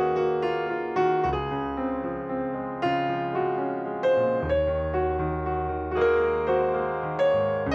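Background piano music: gentle keyboard chords and melody notes struck and left to ring.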